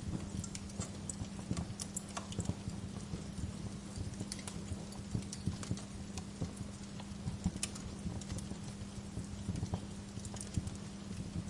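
Wood fire crackling in a fireplace: irregular sharp pops and snaps of burning logs, some of them louder, over a steady low hum.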